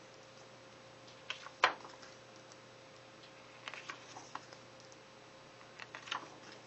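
Pages of an artbook being turned by hand: a few short paper flaps and rustles, the sharpest about a second and a half in, with further page turns around the middle and near the end.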